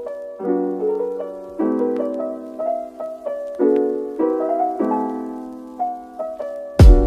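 Background music: a gentle piano playing chords and a melody, with a drum beat and bass coming in near the end.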